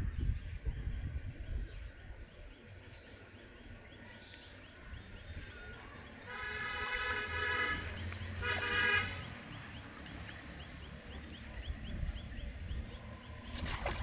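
A vehicle horn honks twice, a longer honk about six seconds in and a shorter one right after it, each a steady flat tone, over low wind noise on the microphone.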